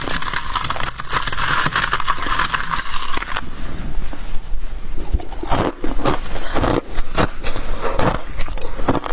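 Freezer frost being scraped and crunched by mouth. A dense scraping hiss runs for about the first three seconds, then gives way to a run of crisp, separate crunches.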